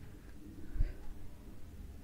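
Mostly quiet, with one faint, soft thump a little under a second in as boiled potato is broken by hand into a bowl of boiled chickpeas.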